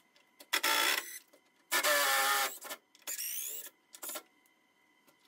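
RIDGID cordless driver spinning out headlight mounting screws in four short runs, the third rising in pitch as the motor speeds up.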